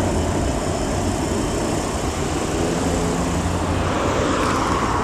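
Steady rumble of passing vehicle noise, with a brief faint engine tone midway and a rushing sound swelling slightly near the end.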